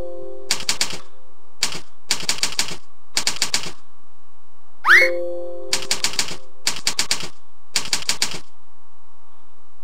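Quick key clicks in runs of about three as repeated digits are typed on a numeric keypad in a typing-tutor program. About five seconds in, a chime sounds as one lesson is completed.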